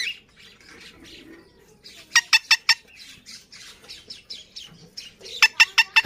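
Alexandrine parakeet calling: a run of four short, sharp, shrill calls about two seconds in and another near the end, with soft chattering in between.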